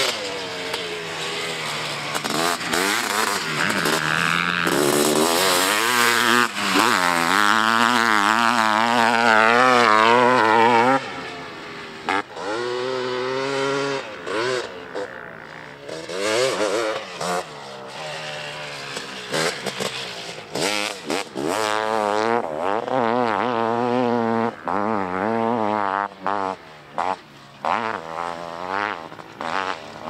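Honda CR500AF's 500cc single-cylinder two-stroke engine being ridden hard, revving up and down with the throttle. It is loudest over the first ten seconds and drops off suddenly at about eleven seconds. Near the end it runs in a string of short throttle cuts and pick-ups.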